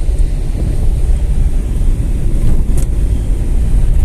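Steady low rumble of a small car driving on an unpaved dirt road, heard from inside the cabin: engine, tyres on the dirt track and some wind noise.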